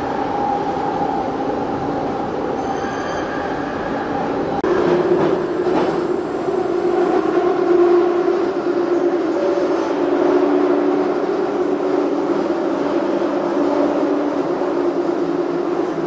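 London Underground 1996 Stock Jubilee line train running through a tunnel, heard from inside the carriage: the rumble of wheels on rail with a steady droning tone. About five seconds in it grows louder and the tone drops lower.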